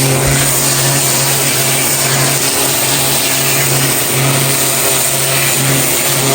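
Pressure washer running: a steady engine hum under the continuous hiss of the water jet spraying interlocking pavers.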